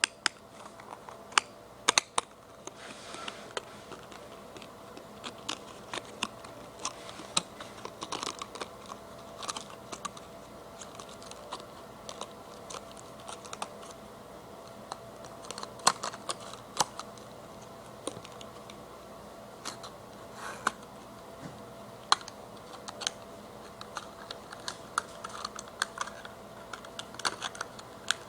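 Irregular clicks, taps and light rustles of a small cardboard box and its plastic packaging being opened and handled, over a faint steady hum.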